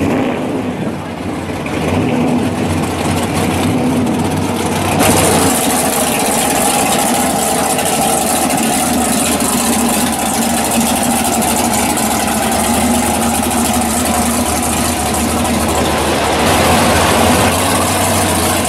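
Loud, steady idle of a drag-race 1970 Chevy Nova's engine, with other race cars idling alongside.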